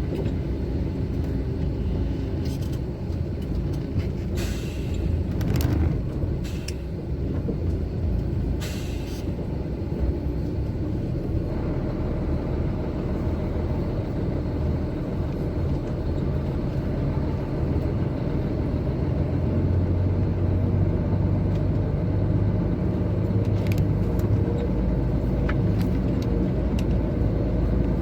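Heavy truck driving on the road, its engine and tyres making a steady low drone that grows louder about two-thirds of the way in. Short bursts of hiss come a little after four seconds in and again near nine seconds.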